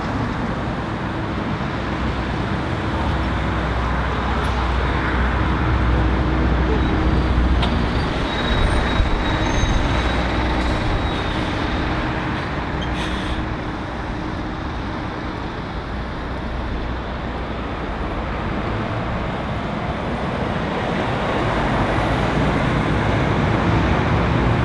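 Road traffic going round a roundabout: cars and lorries passing with steady tyre noise and the low hum of diesel lorry engines, which swells as a lorry pulls round near the end. There is a short hiss about halfway through.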